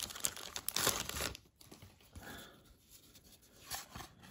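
Football card pack wrapper crinkling and tearing as it is opened, for the first second and a half or so, then only faint soft handling sounds.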